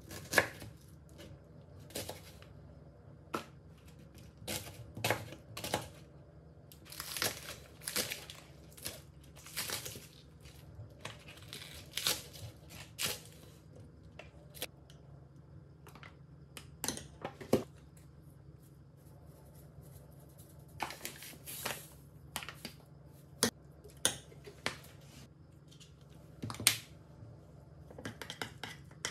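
Chef's knife cutting onion and spring onions on a plastic cutting board: irregular knocks of the blade on the board, with short slicing and scraping strokes between them, over a faint steady room hum.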